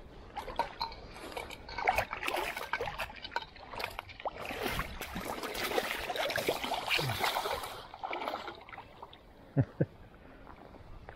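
Shallow river water splashing and sloshing in irregular bursts with sharp little clicks for several seconds, then dying down. Two short low thumps follow near the end.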